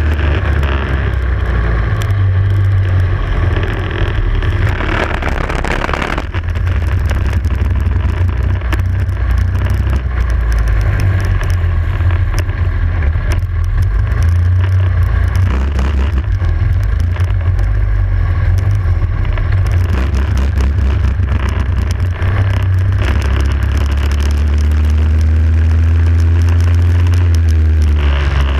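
Racing kart engine running hard through a lap, heard from an onboard camera. The engine note climbs steadily over the last few seconds as the kart accelerates, then drops right at the end.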